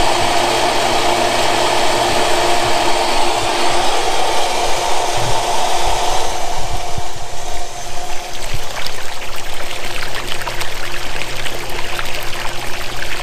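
Red Lion 1 hp shallow-well jet pump running with a steady electric motor hum, freshly primed and pumping off a new well. From about halfway through, water splashing and gushing out of the open discharge pipe takes over from the hum.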